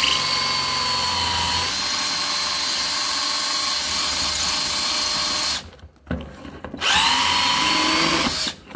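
Cordless drill boring into a metal rivet through an inline skate's plastic cuff, making a pilot hole to drill the rivet out. It runs steadily for about five and a half seconds, stops briefly, then spins up again with a rising whine for about two seconds before stopping.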